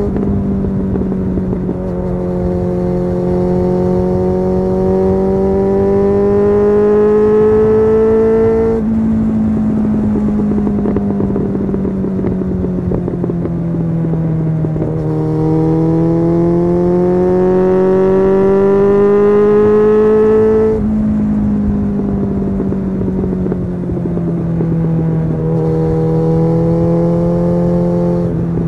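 Suzuki GSF 600 Bandit's inline-four engine running through a Leo Vince SBK aftermarket exhaust while riding. Its note climbs slowly and grows louder under throttle for several seconds, then drops as the throttle is eased off, twice over, and runs fairly level near the end.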